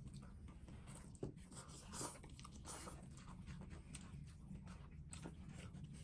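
Faint eating sounds of ramen being chewed, with scattered small clicks, over a low steady background hum.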